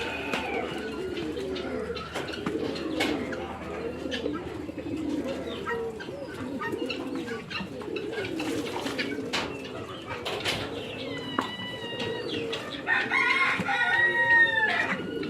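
A flock of farm birds calling together in a continuous low, wavering cooing chatter. Louder, higher-pitched calls join in from about eleven seconds in until near the end.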